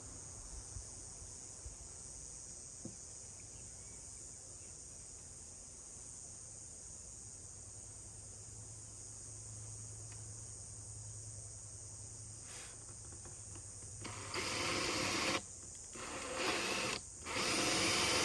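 Power drill running in three short bursts near the end, drilling a new hole through the wooden shell of a 16-inch Tama floor tom. Before that there is only a faint steady high-pitched hum in the background.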